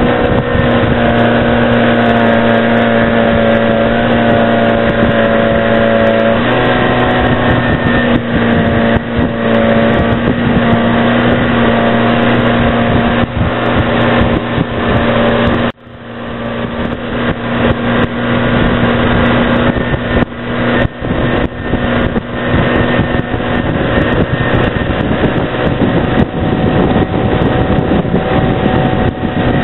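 Motorboat engine running steadily, with a slight step in pitch about six seconds in. The sound drops out sharply for a moment about sixteen seconds in and then comes back.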